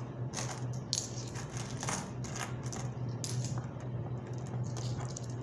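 Coins from an opened piggy bank clinking as they are picked up and set down one at a time, in irregular sharp clicks about two a second that thin out toward the end, over a steady low hum.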